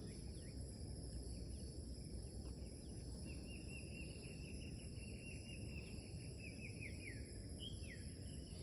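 Pre-dawn tropical forest chorus: insects keep up a steady high-pitched drone in several layers. About three seconds in, an animal gives a rapid trill of quick repeated notes lasting about four seconds, ending in a few falling notes.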